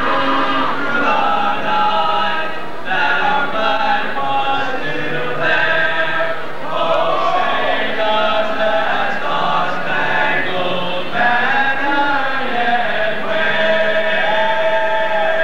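A group of voices singing a cappella in unison, holding long notes of a slow melody.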